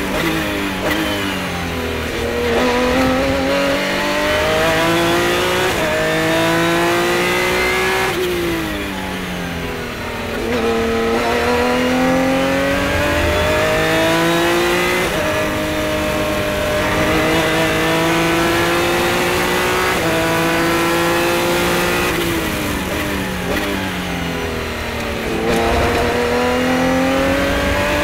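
Revolution A-1 500SC prototype race car's engine at full racing effort, heard from the cockpit. It revs up through the gears with quick upshift steps in pitch. The revs fall away three times as the driver brakes and downshifts for corners, then it climbs hard again.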